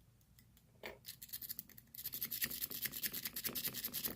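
A lock pick raking back and forth in the keyway of a Brinks 40 mm brass padlock: a few light ticks, then from about two seconds in a fast run of metallic scratching and clicking as the rake scrubs across the pins.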